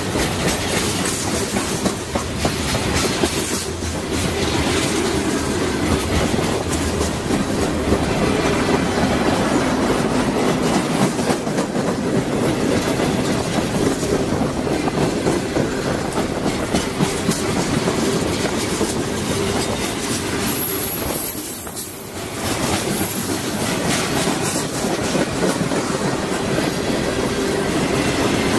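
Freight train cars rolling past close by: a steady rumble of steel wheels on rail with clickety-clack over the rail joints, and a brief high-pitched squeal about twenty seconds in.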